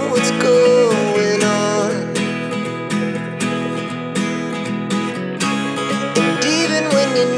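Background music with strummed acoustic guitar and a wavering melody line near the start and end.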